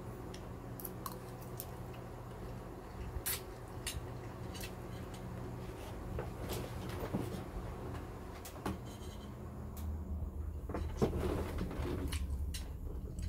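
A person slurping and chewing instant fried noodles eaten off a plate with a fork, with scattered light clicks, over a steady low hum.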